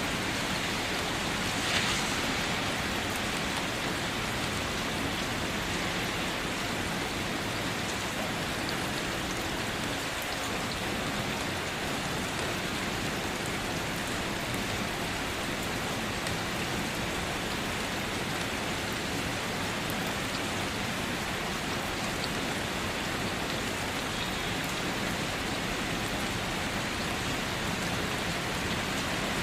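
Steady rain falling, an even hiss, with one brief louder tap about two seconds in.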